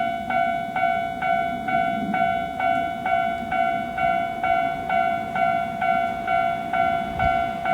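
Japanese railway level crossing warning bell ringing its repeated "kan-kan" at about two strokes a second, with a low rumble underneath.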